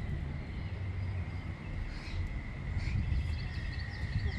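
Outdoor ambience: wind rumbling on the microphone under a steady high-pitched drone, with a few faint chirps.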